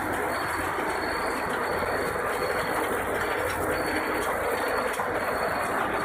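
Puffed snack production line machinery running: a steady mechanical noise with a faint, thin high whine above it.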